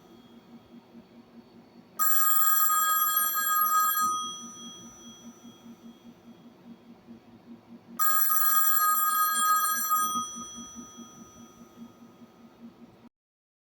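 Telephone bell ringing twice, each ring lasting about two seconds and fading off afterwards, with about six seconds between the starts of the two rings.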